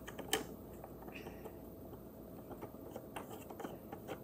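Light clicks and taps of wooden and plastic craft-kit pieces being handled and fitted together, with one sharper click about a third of a second in.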